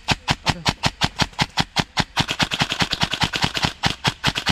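Airsoft guns firing a rapid string of sharp snapping shots, about eight a second, growing denser and overlapping in the middle, then stopping abruptly at the end.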